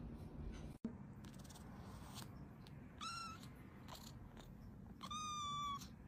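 A kitten meowing twice in a high, thin voice: a short meow about three seconds in, then a longer one that falls slightly in pitch near the end.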